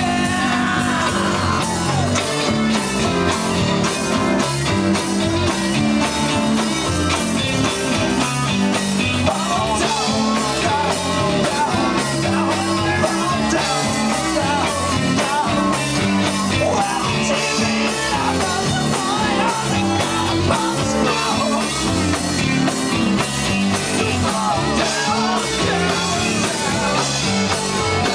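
Live rock band playing at full volume: electric guitar, bass and drum kit with a steady beat.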